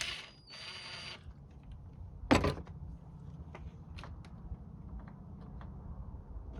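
Hands-on handling noises while parts are taken off a car: a rustling scrape in the first second, a loud knock a little over two seconds in, then scattered light clicks over a low steady hum.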